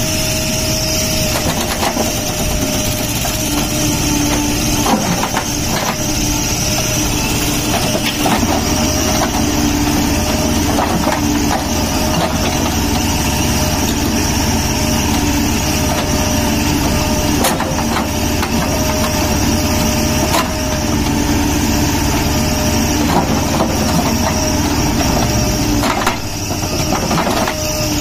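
Backhoe loader's diesel engine running steadily as the backhoe digs, with a few sharp clanks scattered through, loudest near the end.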